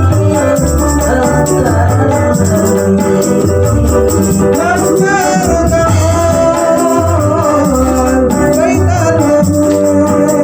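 Hadrah sholawat music: frame drums beating a regular low rhythm with a jingling rattle over it, under a wavering melody.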